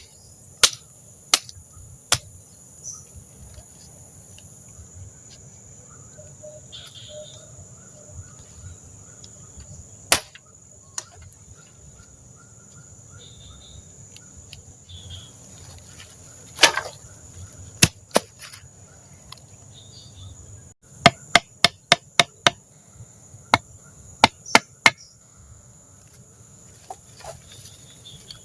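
Insects chirring steadily and high-pitched, with sharp wooden-sounding knocks standing out over them: a few near the start, some scattered through the middle, and a quick run of about seven about two thirds of the way in.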